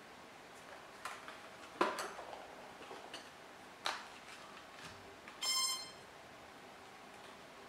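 A few light plastic clicks and knocks from handling the XK X252 quadcopter, then a single short electronic beep a little after halfway as the quadcopter powers up and its LEDs come on.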